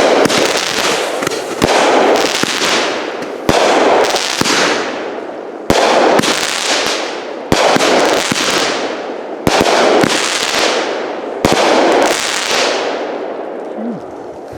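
Consumer 200 gram firework repeater cake firing: a sharp bang about every two seconds, seven in all, each followed by a noisy tail that fades away. The shots stop near the end.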